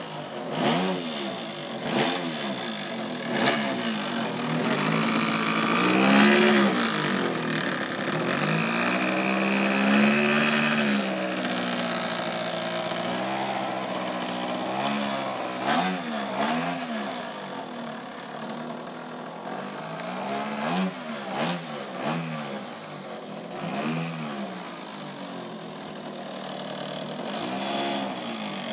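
Revolver 70 model airplane's engine running as it taxis on the ground, the throttle opened and closed again and again so the pitch swings up and down every second or two, held higher for a few seconds near the middle.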